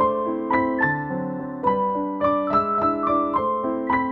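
Background piano music: a steady run of struck notes, several a second, each ringing and fading.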